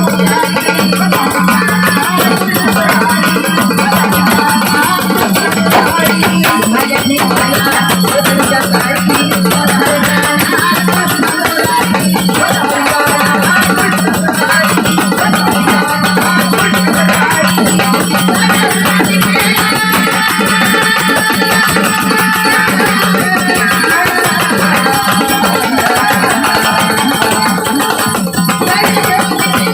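Instrumental interlude of Marathi folk music: hand drums keep a busy rhythm over a steady held drone, with no singing.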